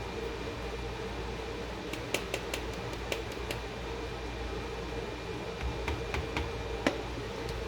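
Steady hum of a fan or appliance in a small room, with scattered light clicks and taps of containers being handled from about two seconds in.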